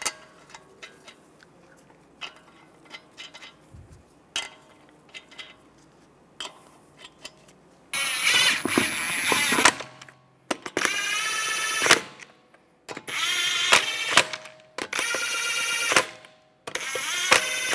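Lug nuts being threaded onto the wheel studs by hand with faint light clicks, then a cordless impact wrench run in five bursts of one to two seconds, starting about eight seconds in, spinning the lug nuts down onto the alloy wheel.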